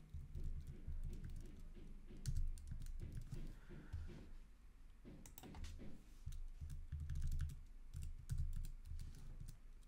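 Typing on a computer keyboard: scattered key clicks in short, irregular runs as numbers are entered.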